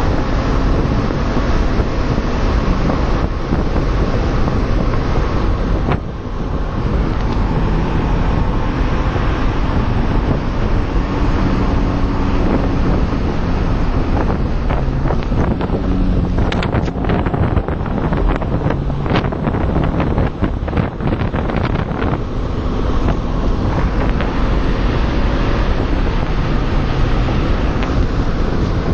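BMW Z4 E85 2.0i's four-cylinder engine running on the move, its pitch rising and falling, under heavy wind and road noise on a phone's microphone. A run of short clicks or knocks comes about halfway through.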